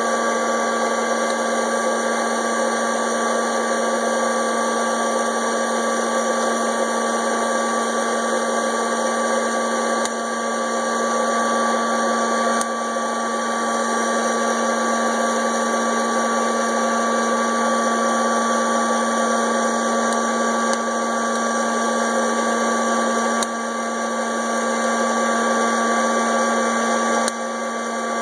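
Hot-air popcorn popper running steadily, its fan and heater blowing coffee beans around the roasting chamber with a constant whirr and hum. The roast is past first crack.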